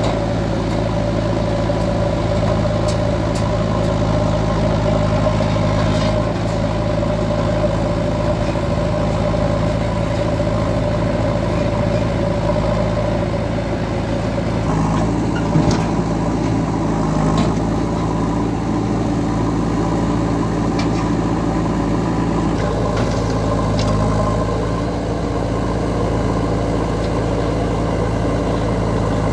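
Diesel engines of a JCB 3DX backhoe loader and a Swaraj 744 FE tractor running steadily while the loader works, with a few short knocks, the clearest about halfway through.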